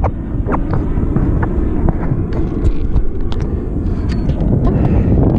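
Wind rumbling on the microphone over choppy water lapping at a kayak, with scattered small clicks and knocks.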